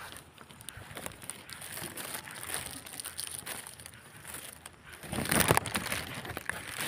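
Footsteps rustling and crunching through tall grass and weeds, with scattered crackles of trampled stems and a louder stretch of rustling about five seconds in.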